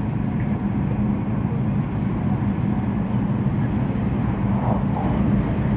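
Shinkansen bullet train running, heard from inside the passenger car: a steady low rumble with a faint, even hum.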